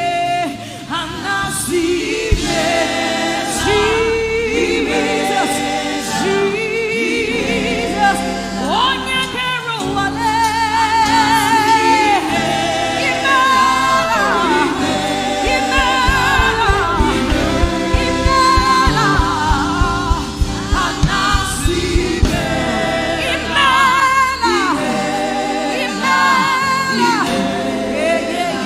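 Live gospel worship music: singers and a choir sing with wavering, held notes over instrumental accompaniment, with a quick beat in the bass for a few seconds midway.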